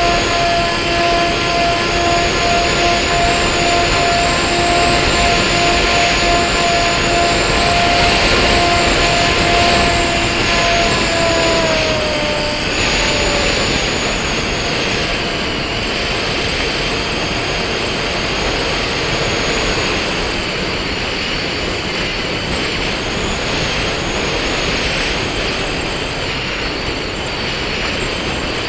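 Model airplane's motor and propeller heard from its onboard camera, over heavy wind rush: a steady whine that falls in pitch and fades about twelve seconds in, after which mostly the rushing air remains.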